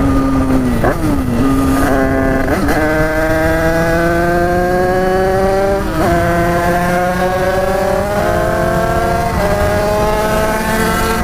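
Tuned two-stroke Derbi motorcycle engine accelerating through the gears, its pitch climbing steadily in each gear and dropping sharply at each of about three upshifts.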